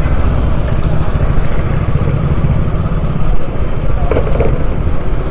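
Motorcycle engine running with a steady low rumble, amid street traffic noise.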